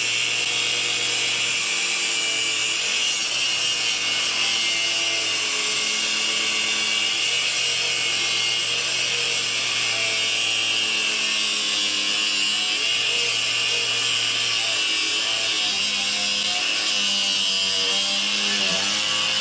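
Battery-powered angle grinder with a cutoff wheel cutting through a welded steel mini bike frame: a steady high hiss over a motor whine whose pitch sags and recovers as the wheel bites into the weld.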